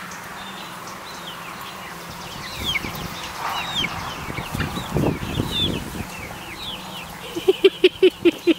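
Young chickens peeping with short high chirps, with a flurry of wing flapping in the middle. Near the end comes a quick run of loud, low clucks.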